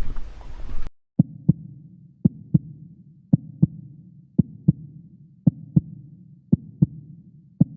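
Heartbeat sound effect: paired lub-dub thumps about once a second over a low hum, starting after the outdoor background noise cuts out abruptly about a second in.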